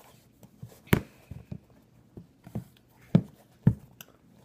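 Handling noise from a sneaker being turned over in the hands close to the microphone: soft rustling with scattered sharp knocks and clicks, the loudest about a second in and two more a little after three seconds in.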